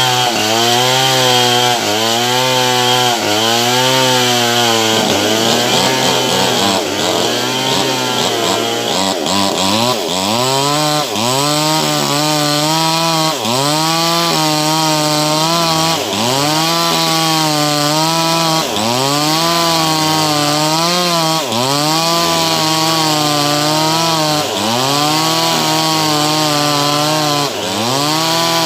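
Cheap chainsaw's small two-stroke engine running at high speed, its pitch rising and sagging over and over, about once every one and a half seconds, as when sawing into wood.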